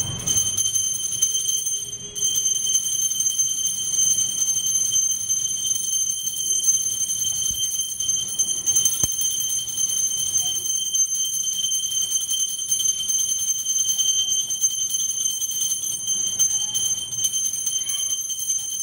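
Small brass puja hand bell rung without pause, its clapper striking quickly to keep up one steady, high ringing, with a short break about two seconds in.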